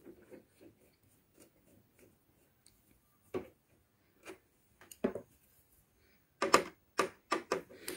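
Scattered small clicks and taps of a screwdriver and screws against the plastic gear-side frame of a Brother DCP-1510 laser printer as its screws are taken out, with a quick run of clicks near the end.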